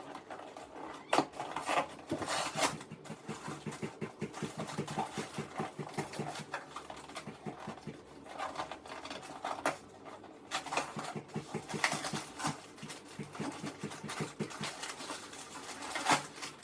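Cardboard product box being handled and opened: scattered clicks, taps and rustles, with a run of rapid small ticks through the first half.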